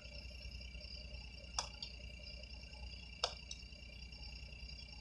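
Faint steady idle of a smart fortwo's three-cylinder engine, heard from inside the cabin, under a steady high-pitched tone. Three sharp clicks come at even spacing, about a second and a half apart.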